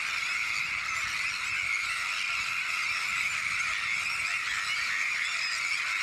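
A Sandwich tern colony with many birds calling at once, in a dense, unbroken chorus of overlapping calls that holds steady throughout.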